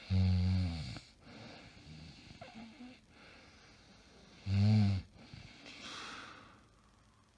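A woman snoring in her sleep: two loud, deep snores about four and a half seconds apart, each followed by a softer breathy out-breath.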